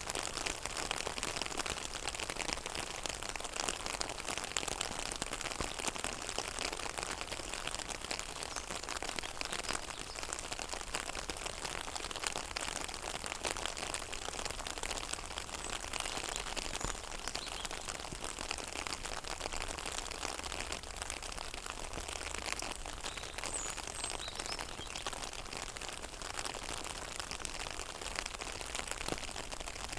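Steady rain falling on a pond's surface: a dense, even patter of many drops hitting the water. A few faint high chirps come in about three-quarters of the way through and again near the end.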